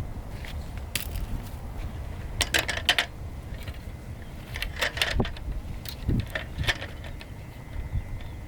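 Scattered light clicks and clinks of small hard objects being handled, in clusters every second or two, over a low rumble of wind on the microphone.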